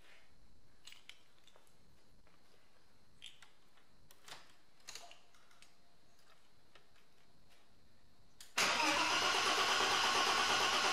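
A few faint clicks and a key jingle, then near the end the starter suddenly cranks the BMW E30 325i's straight-six engine, loud and steady.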